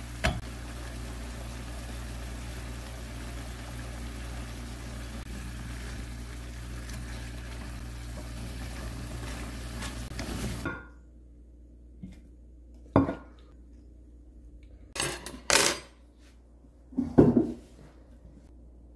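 Meat and vegetables sizzling in a frying pan while a wooden spatula stirs them, with a sharp knock just after the start. About ten seconds in the sizzle cuts off, and a metal spoon clinks against a ceramic bowl a few times.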